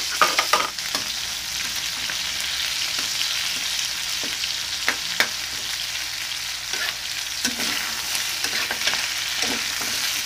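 Pork bones sautéing with garlic and shallots in oil in a wok: a steady sizzle, with the spatula scraping and knocking against the pan as the pieces are stirred, several times in the first second and now and then after.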